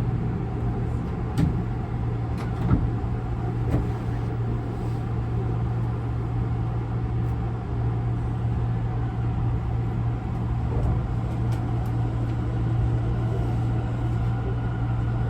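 Inside a Tobu 50090 series electric train car: a steady low hum with a few sharp knocks in the first four seconds.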